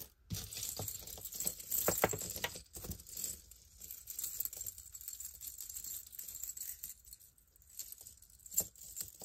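Costume jewelry being handled: metal pieces and beads clicking and clinking against each other amid rustling, busiest in the first few seconds, with a sharper click near the end.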